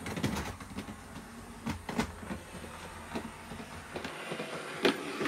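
Electric model train running along the layout track: a low rumble with irregular clicks of the wheels over the rail joints, the rumble stopping about four seconds in.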